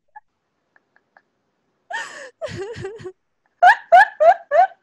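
A woman laughing: it starts about two seconds in with breathy chuckling, then turns into a quick run of short, high "ha" bursts near the end.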